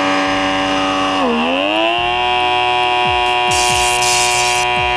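Battery-powered blackhead-remover pore vacuum (XN8030 derma suction) buzzing steadily with its nozzle on the nose; about a second in the pitch sags, then rises and settles higher as the suction takes hold. A short hiss comes in about three and a half seconds in.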